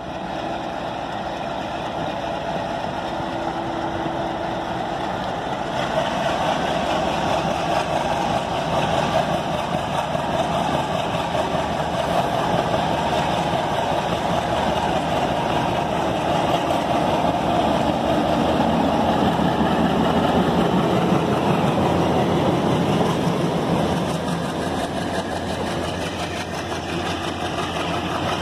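WDM3D diesel locomotive (ALCO 251 V16 engine) running under power as it approaches at speed and passes close by, with the rumble of the train behind it. The sound swells from about six seconds in, is loudest about two-thirds of the way through, and eases slightly near the end as the locomotive goes by.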